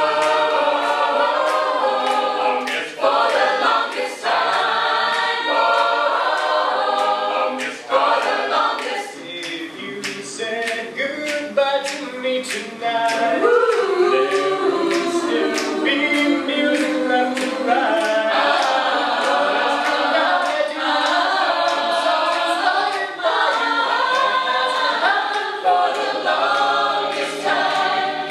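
An a cappella vocal group singing, several voices in harmony with no instruments, over sharp clicks that keep an even beat.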